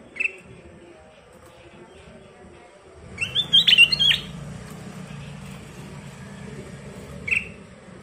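Ruby-throated bulbul (kutilang emas) singing: a single short whistled note, then a loud burst of quick, rising and falling whistled phrases about three seconds in, and one more short note near the end.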